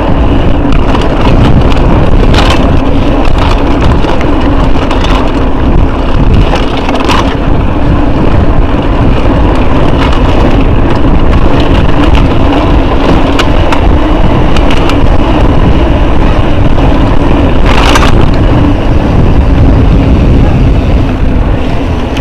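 Wind buffeting an action camera's microphone as a mountain bike rides down a dirt trail, with the bike rattling over rough ground and a few sharp knocks from bumps.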